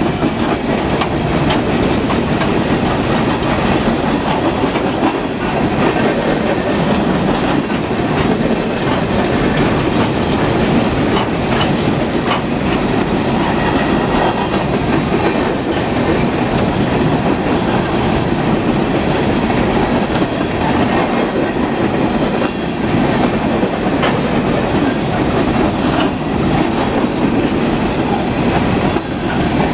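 Empty open-top coal hopper cars rolling past close by: a loud, steady rumble of steel wheels on rail, with scattered clicks and clatter from the wheels and cars.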